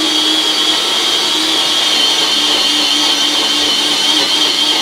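A small motor whirring steadily, with a constant low hum and a high whine.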